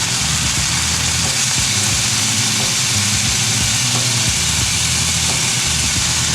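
Chicken breast pieces sizzling loudly in a frying pan with olive oil and a little stock, a steady hiss as they cook through.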